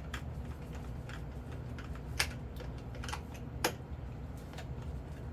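Irregular small clicks and ticks of a screwdriver working screws into the tail of a foam RC jet, with two sharper clicks about two and three and a half seconds in, over a steady low hum.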